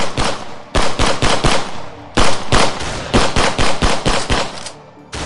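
Gunfire sound effect: rapid bursts of automatic-weapon fire, about five shots a second, broken by short pauses between bursts.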